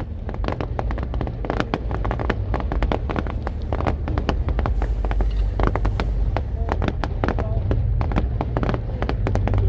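Large fireworks display: a dense, rapid run of bangs and crackling reports, many a second, over a constant low rumble of shell bursts.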